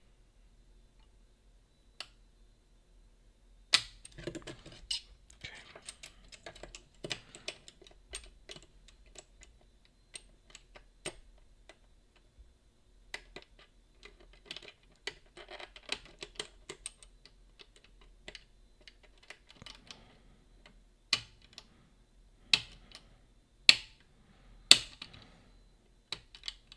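Small metal clicks and scraping of lock-picking tools working the levers of a Boda 429 eight-lever deadbolt, irregular and fitful. Several louder sharp clicks come near the end as the lock opens.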